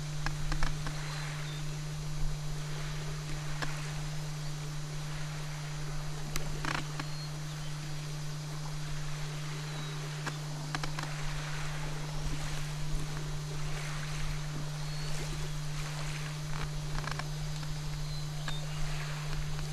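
Outdoor ambience: a steady low hum under soft, gently swelling rushing noise, with a few faint high chirps and scattered clicks.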